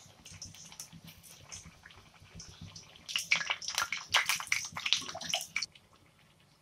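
Masala vadas deep-frying in hot oil in a kadai with a soft, steady sizzle. About three seconds in, a steel slotted spoon turns them, and a loud burst of crackling and spattering follows for a couple of seconds before it stops sharply.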